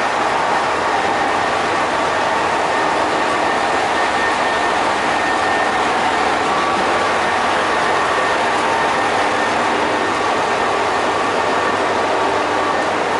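Kishin Line diesel railcar standing at the platform with its engine idling: a steady running noise with a few faint steady tones and no change in pace.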